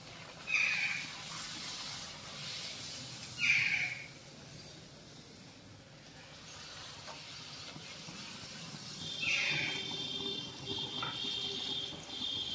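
Puris deep-frying in hot oil in an iron kadhai, a steady sizzling hiss as they are turned with a wire skimmer. Three short shrill calls cut through it, the loudest sounds, and a high chirping tone comes in during the last few seconds.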